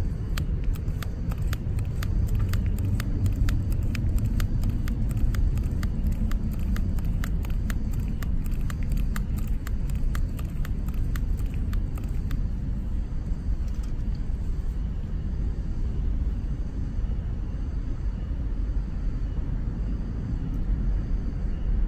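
The hand pump on a liquid-fuel camping stove's fuel bottle being pumped to pressurise the bottle: a quick, regular clicking about three strokes a second that stops about twelve seconds in. A steady low rumble runs underneath throughout.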